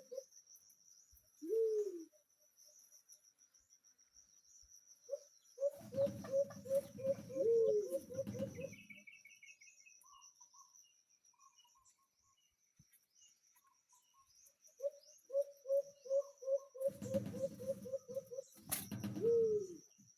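A bird calling in two bouts of rapid, evenly spaced low notes, about three a second, each bout with a swooping note that rises and falls. A few single swooping notes come near the start.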